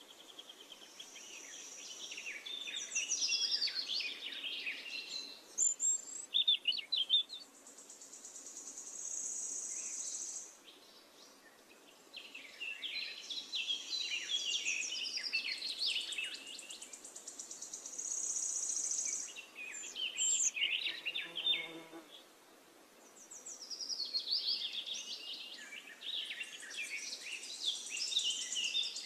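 Birds chirping and warbling in bursts of quick notes, over a high, steady insect buzz that swells and fades about every nine seconds.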